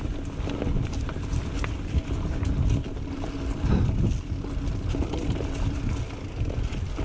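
Mountain bike riding over a dirt trail: a continuous low rumble of tyres and wind on the microphone, with scattered clicks and rattles from the bike.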